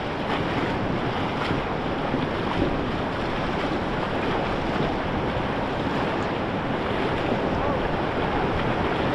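White-water rapids rushing steadily around a raft, a continuous wash of water with wind buffeting the microphone.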